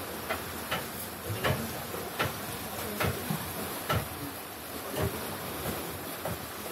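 Seashore sound: a steady hiss of surf and wind, with about seven soft knocks roughly a second apart.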